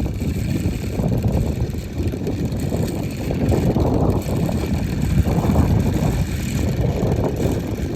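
Gusty wind buffeting the microphone, swelling and easing, while a homemade wind-driven fan spins with a faint steady whir.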